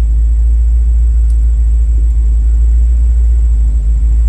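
Foxbody Mustang's engine idling at about 850 rpm: a steady, loud low rumble.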